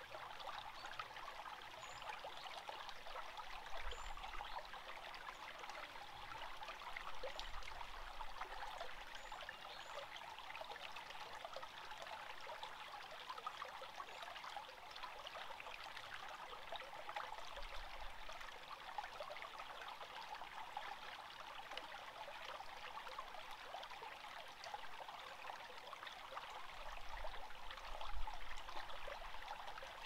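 Shallow forest stream trickling and bubbling steadily over rocks, a continuous even babble. A few brief low rumbles come and go, strongest near the end.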